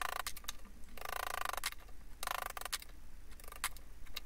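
Hammer tapping a chisel driven under the thick bark of a pecan log, prying the bark away from the wood: a few sharp taps between longer, half-second scraping sounds.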